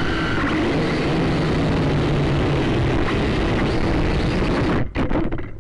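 Syma X5C quadcopter's motors and propellers whirring loudly, picked up by its own onboard camera as it lies in the grass after a crash. The motors cut out suddenly near the end, with a couple of clicks.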